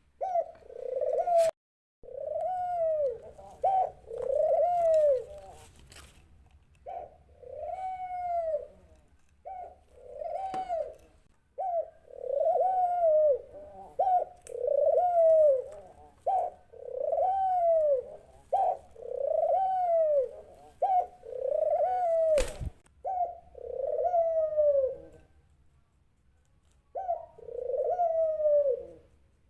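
A dove cooing: a long series of arched coos, about one a second, with a short pause near the end. Two sharp clicks cut in, one just after the start and one about three-quarters through.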